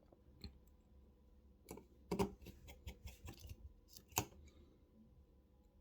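Scattered light clicks and taps from handling a smartphone and small repair tools on the bench, a few close together around two and three seconds in and the loudest about four seconds in.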